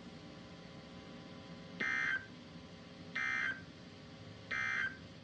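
NOAA Weather Radio sending three short bursts of SAME digital data tones about 1.3 seconds apart: the end-of-message code that closes a Required Weekly Test.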